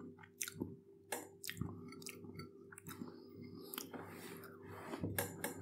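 A man chewing a mouthful of crunch-coated vegan fillet burger: faint, irregular soft crunches and mouth clicks, picked up by a clip-on microphone on his chest.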